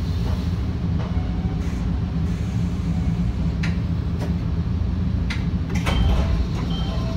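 Electric train standing at a station: a steady low hum from the railcar's onboard equipment, with scattered clicks and knocks and a busier patch of knocking about six seconds in.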